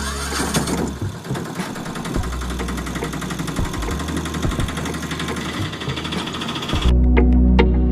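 A small motor running with a fast, even rattle; it cuts off about seven seconds in as music with a steady beat comes back.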